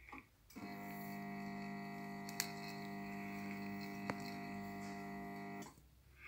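Steady electrical buzz of a resistance soldering unit, switched on by its button for about five seconds while the glowing probe tip heats the brass and runs solder along the seam. Two sharp ticks sound partway through, and the buzz cuts off suddenly.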